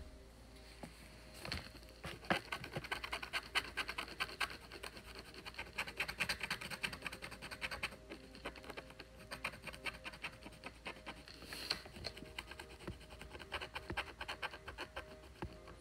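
Wooden scratch stick scraping scratch-art paper in quick, short, dry strokes, several a second, starting about a second and a half in. It is scratching away the black coating to reveal the colour underneath.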